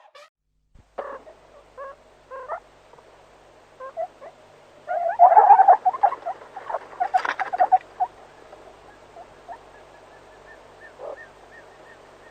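Animal calls: scattered short pitched calls, with two dense bursts of chattering calls about five and seven seconds in.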